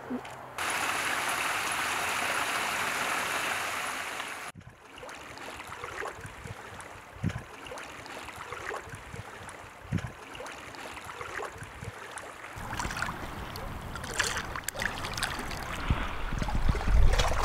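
Shoreline water sounds: a steady rush of water that cuts off suddenly a few seconds in. Then quieter lapping and trickling among rocks with scattered small splashes, growing louder near the end.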